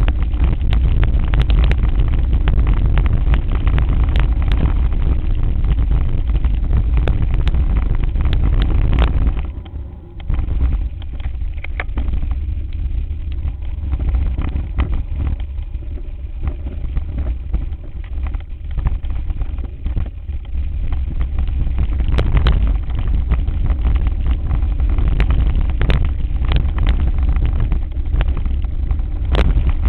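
Mountain bike being ridden over rough ground: a heavy rumble of tyres and frame with frequent rattles and knocks, and wind on the microphone. The rumble is loudest while on the cobbles and eases about ten seconds in as the ride continues on a dirt singletrack.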